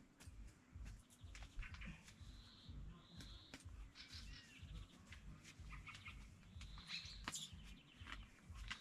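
Faint birds chirping repeatedly, with scattered small clicks.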